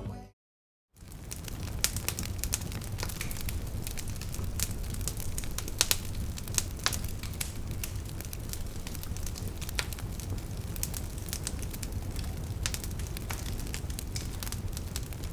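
Campfire crackling: wood burning, with sharp pops scattered irregularly over a steady low rumble.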